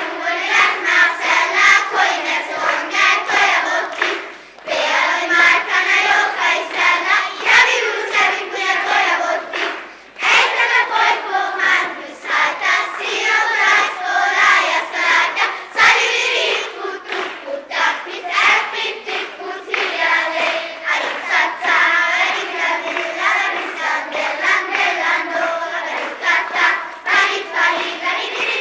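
Children's choir singing together, with short sharp claps heard throughout.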